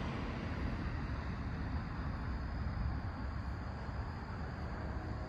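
Steady low rumbling outdoor noise with no distinct events.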